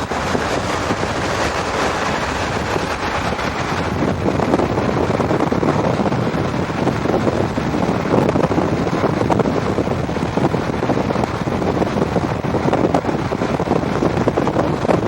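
Steady, loud rushing and crackling of wind buffeting the microphone.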